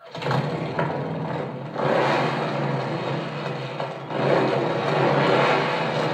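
Motorcycle engine running, swelling up twice, about two seconds in and again about four seconds in, as if revved.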